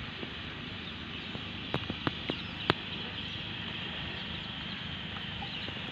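Steady wind and water noise around a small boat, with a quick run of four or five sharp clicks about two seconds in, the last one the loudest.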